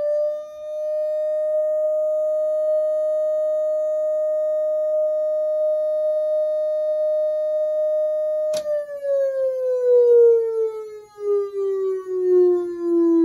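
Whelen WS-3000 electronic siren controller sounding its steady alert tone through a single Whelen siren driver muffled in a towel-covered bucket: one held tone. About eight and a half seconds in there is a click, and the tone then slowly falls in pitch as it winds down.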